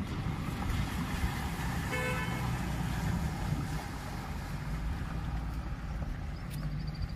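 Maruti Gypsy 4x4 engine running as it drives through a shallow river, with water splashing at the wheels. A brief toot sounds about two seconds in.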